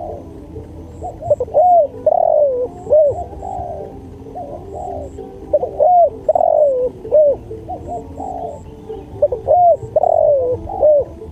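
Spotted doves cooing: a steady run of short, hooked coos, a few a second, with phrases following close on one another. Faint high ticking sounds behind them.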